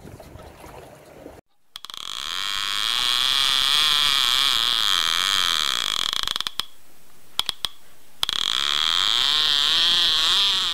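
Fast mechanical ratcheting whir in two long runs, the first about five seconds and the second about three, with a few sharp clicks in the gap between them.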